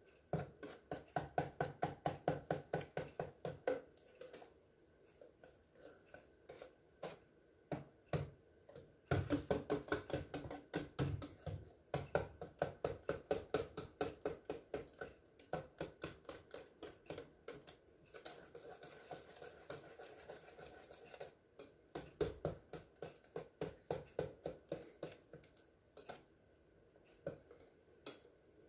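Wire whisk beating egg custard in a stainless steel pot, its wires clicking against the metal in rapid, rhythmic strokes, several a second, in runs with short pauses between. The eggs are being whisked in to break up the yolks and blend them into the cream.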